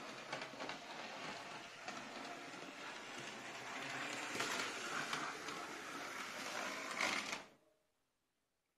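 Model Canadian Pacific #4085 diesel locomotive running on a model train layout: its electric motor whirring and wheels clicking along the track. The sound cuts off abruptly about seven and a half seconds in.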